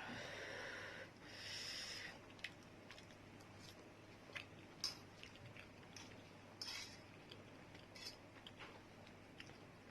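A person eating Maggi instant noodles quickly, faintly heard: two short hissing sounds in the first two seconds, then scattered light clicks and chewing, the loudest click about five seconds in.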